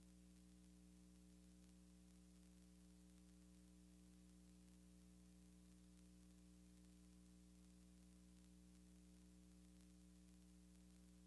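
Near silence: a faint steady electrical hum with hiss, the recording's background noise.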